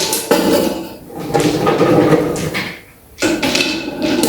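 Loose decorative stones clattering and scraping against each other and the vase as they are set by hand around a tabletop fire-pot burner, in three bursts with short pauses between.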